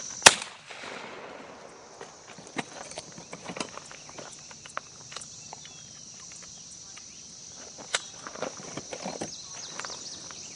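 A single shotgun shot about a quarter second in, with a short echo trailing after it. After that comes a steady high insect buzz with scattered light clicks.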